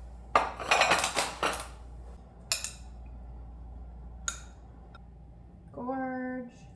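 Ceramic plates and metal forks being set down on a tabletop: a quick run of clinks and clatters, then two single clinks. A short, steady, pitched hum sounds near the end.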